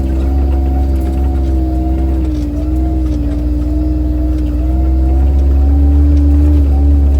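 Car engine running as the vehicle drives along, a steady engine note that drifts slightly in pitch over a strong low rumble.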